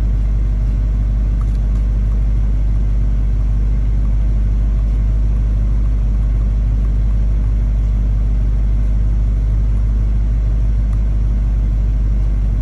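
Dodge SRT Hellcat's supercharged 6.2-litre HEMI V8 running steadily with a low rumble, carrying a noise that its owner cannot identify and is asking to have diagnosed.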